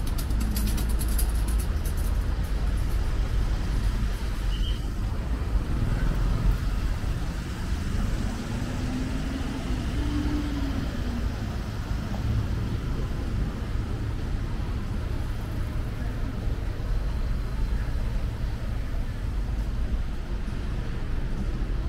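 City street traffic: a steady rumble of passing cars and buses. One vehicle's engine pitch rises and falls near the middle.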